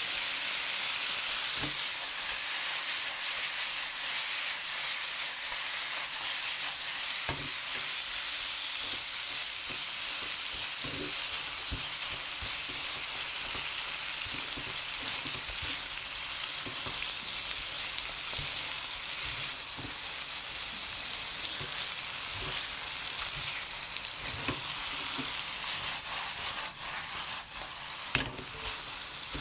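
Dumplings sizzling in oil and a bubbling ketchup-and-gochujang sauce in a frying pan as the sauce reduces into a glaze. A spatula stirs them, with scattered soft knocks and scrapes against the pan and one sharper click near the end.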